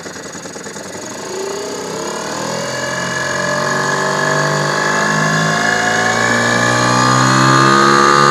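Yamaha 2 hp two-stroke outboard motor opening up from idle, its pitch rising steadily and getting louder from about a second in as it pushes the boat under way.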